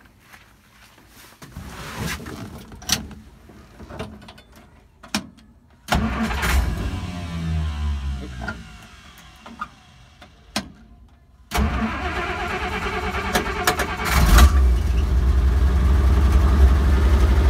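A 1956 Willys Jeep's engine being started after a few clicks and knocks: it fires about six seconds in and runs, slowing down in pitch, then stops. A little later it starts again and keeps running steadily, getting louder near the end.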